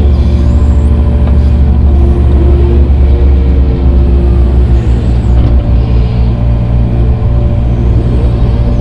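Heavy grading equipment engine running steadily as a low, loud drone, with fainter whines that rise and fall several times over it.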